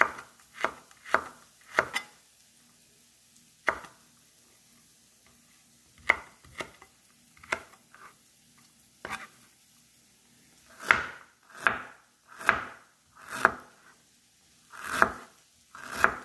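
Knife chopping on a cutting board: a few scattered chops, then from about eleven seconds in a louder, steadier run of chops a little under a second apart.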